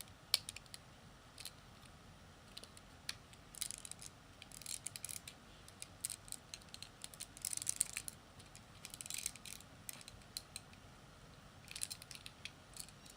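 Plastic Lego bricks clicking and clattering as they are handled and pressed together: scattered sharp clicks and short bursts of rattling.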